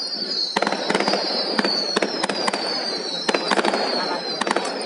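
Fireworks going off: a quick, irregular string of sharp bangs over high whistles that keep falling slowly in pitch.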